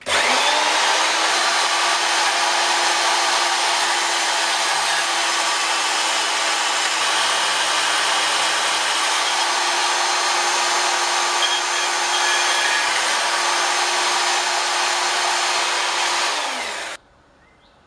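Vertical metal-cutting band saw switched on and sawing through rusty steel angle iron: a steady hiss of the blade in the metal over the motor's hum. Near the end it is switched off, and the motor winds down, falling in pitch, before it stops.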